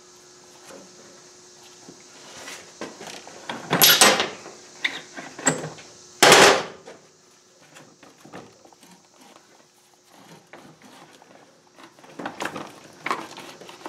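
Metal clunks and scraping as the rear axle is drawn out of a Kawasaki KLR 650's swingarm and the rear wheel is handled. Two louder knocks come about four and six seconds in.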